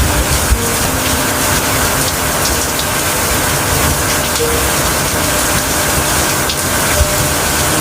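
Steady, heavy rain: a dense, even hiss of water with a few soft low thumps.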